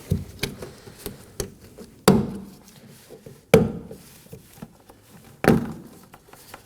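Plastic retaining clips of a car door's vapor barrier being pried out one by one, each coming loose with a sharp click. Three loud clicks about two, three and a half and five and a half seconds in, with lighter clicks and taps between.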